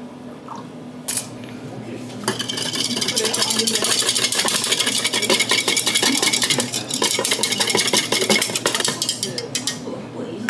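A metal utensil worked quickly against a dish: a fast, even run of clinks and scrapes that starts about two seconds in and lasts about seven seconds.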